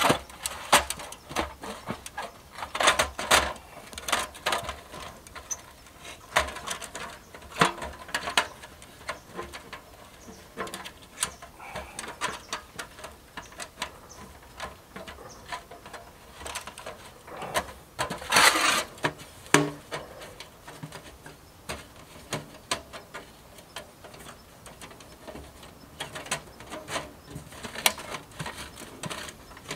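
Irregular clicks, knocks and clatter of gear being handled at close range, with a louder cluster of rattling about 18 seconds in.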